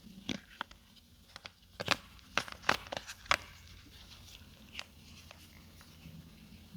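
Phone packaging being handled: a quick run of sharp clicks and crinkles, thickest in the first three seconds or so, then a few scattered clicks.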